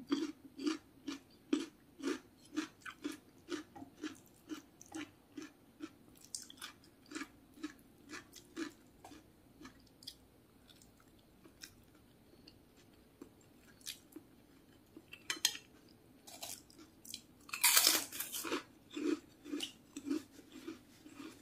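Close-miked eating: a person chewing siomay fish dumplings and fresh cucumber, with short crisp chewing crunches in a steady rhythm of about two to three a second. There is a brief pause just past the middle, and a louder, noisy burst of sound near the end.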